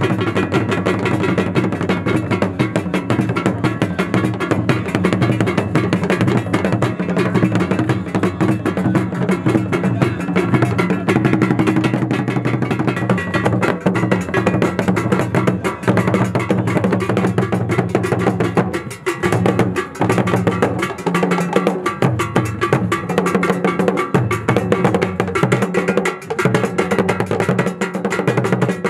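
Ghanaian Ewe traditional drum ensemble playing a fast, dense rhythm of deep drum tones and sharp clicking strokes, briefly thinning out about two-thirds of the way through.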